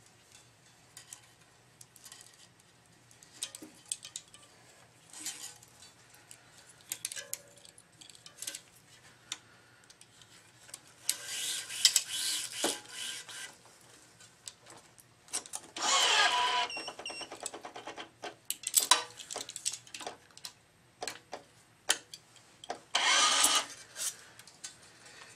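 Tennis string being pulled through a racket's grommets in three longer zipping pulls, the loudest a little past midway, between scattered clicks and taps from handling the string and the stringing machine's clamps.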